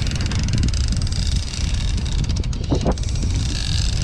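Steady low rumble of wind buffeting the camera microphone on an open fishing boat at sea, with a brief higher-pitched sound about three-quarters of the way in.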